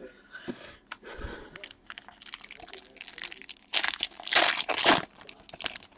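A foil hockey card pack wrapper being crinkled and torn open, with irregular crackling that is loudest a little past halfway.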